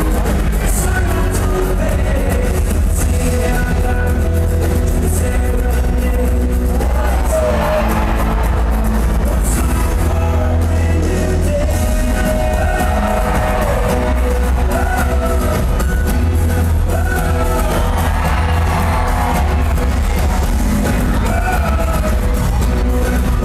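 Show soundtrack music played loud over the stadium's sound system, with a steady heavy bass and a sung melody over it.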